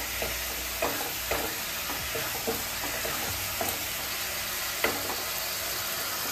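Spice paste with cashews and raisins sizzling in oil in a non-stick kadai, stirred with a wooden spatula that scrapes and knocks against the pan several times over a steady frying hiss.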